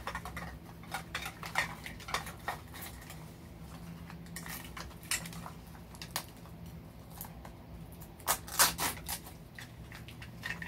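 Hard plastic Mini Brands capsule halves clicking and clattering as they are handled and pried apart, with a louder cluster of clacks about eight and a half seconds in.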